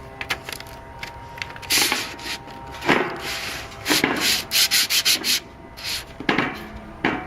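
Rubbing and pressing Jessup grip tape down onto a skateboard deck to smooth it out: a series of irregular gritty rubbing strokes on the sandpaper-like surface, several in quick succession in the middle.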